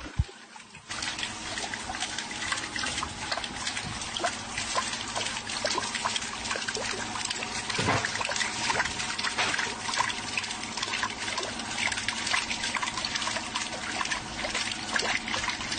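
Water splashing and trickling as it pours from a hose down a metal chute onto spinning plastic paddle wheels and into a plastic tub, with a faint steady hum underneath. The sound comes in suddenly about a second in.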